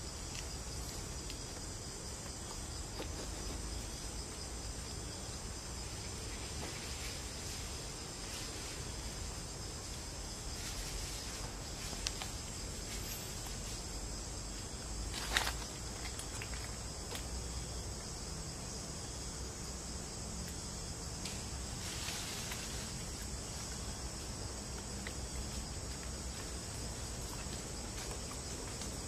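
Steady, high-pitched insect chorus, with a few short knocks, the loudest about halfway through.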